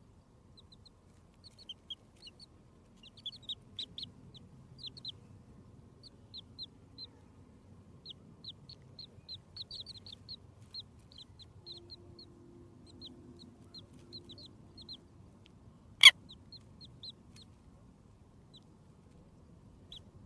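Chicks peeping: many short, high-pitched cheeps, some single and some in quick runs. A single sharp click comes about two-thirds of the way through.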